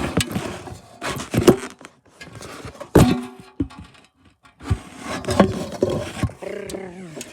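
A manual snow plow blade knocking and scraping on the driveway: several sharp knocks, some of them ringing briefly, with scraping between.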